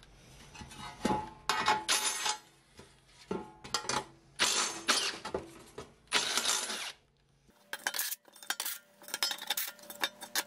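Ryobi cordless drill running a step-drill bit through thin steel plate in repeated bursts of about a second each, enlarging pre-drilled bolt holes to half an inch, with metal clinking as the bit cuts.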